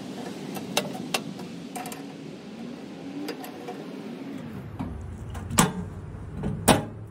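Faint metal clicks of pliers working a black metal mailbox door's latch, then the door snapping shut with two sharp clicks near the end as the adjusted latch catches and holds it closed.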